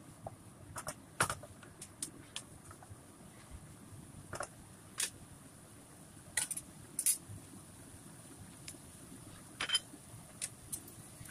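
Wooden spatula knocking and scraping against a wok while stir-frying vegetables: irregular clicks and taps, the loudest about a second in, over a faint steady background noise.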